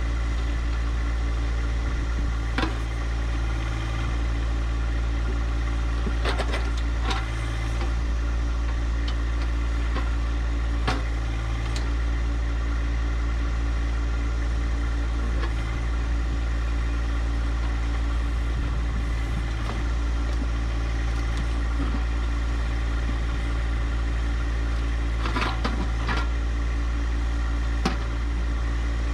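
John Deere 1025R compact tractor's three-cylinder diesel engine running steadily, with a few sharp knocks or clanks scattered through it.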